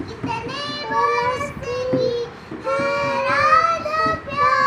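A young girl singing a song without accompaniment, in phrases with long held notes and short breaks between them.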